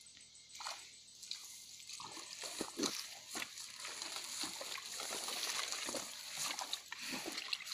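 Irregular rustling and crunching of rubber-booted footsteps in grass, along with a woven plastic fertilizer sack being handled and carried. The scuffs and rustles grow denser about two seconds in.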